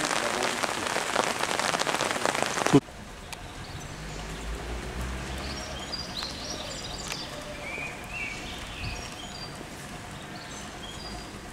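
Rain pattering close to the microphone, a dense hiss of drops that cuts off abruptly about three seconds in. After that, a much quieter wet outdoor ambience with small birds chirping now and then.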